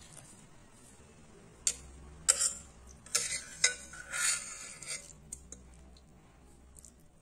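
Metal spoon scraping and clinking against a glass bowl while scooping thick carrot halwa, a few sharp clinks mixed with short scrapes in the middle of the stretch.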